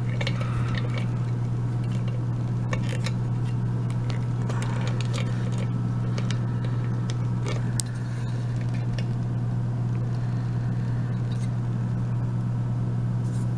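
A steady low hum, with scattered light clicks and knocks as a padlock is set and clamped in a rubber-jawed bench vise.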